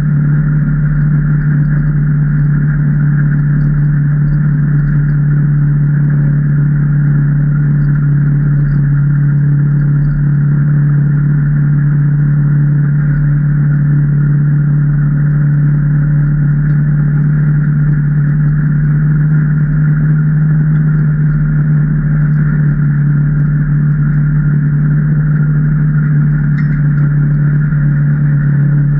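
2019 Can-Am Maverick Trail 800 side-by-side's V-twin engine running at a steady pace, a constant drone with no revving up or down.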